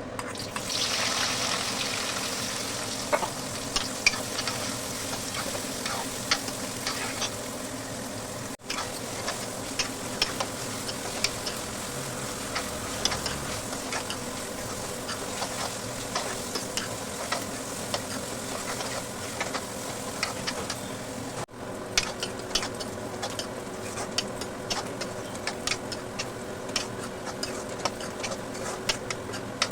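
Food sizzling in hot oil in a cooking pan, louder for the first few seconds, while a spoon stirs and clicks against the pan many times.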